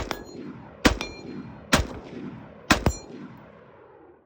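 AR-15 pistol with a 10.5-inch barrel firing four single shots about a second apart, each shot followed by a short metallic ring and a fading echo.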